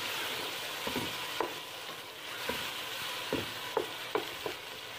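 Potato cubes and green peas sizzling in spiced oil in a metal pot while a wooden spatula stirs them. About eight light knocks and scrapes of the spatula against the pot sound over the steady sizzle.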